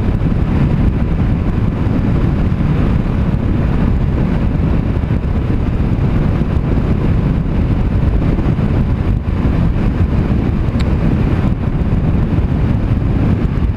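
Steady wind rushing over a GoPro microphone on a rider riding a Honda CBR500R motorcycle at speed, with road and bike noise underneath. The wind comes from the bike's low windscreen throwing the air straight into the rider's face.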